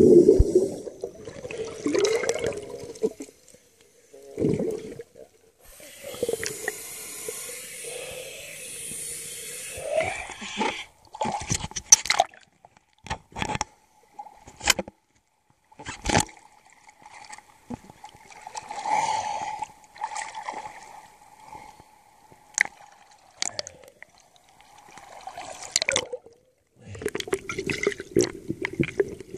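Water sounds around a camera in and at the surface of a lake: a loud rush of scuba exhaust bubbles at the start, then sloshing and splashing at the surface with a run of sharp knocks, and a faint steady hum through the middle.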